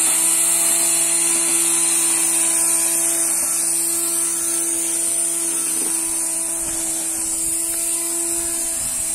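Homemade electric grass cutter built from an angle grinder, its motor running steadily with a high-pitched whine.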